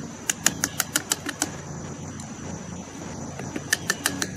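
Quick runs of sharp metal taps from a hand tool worked against the old AC compressor, about six a second, in two bursts, the second starting near the end. The tapping sets up vibration to break a stuck fastener loose.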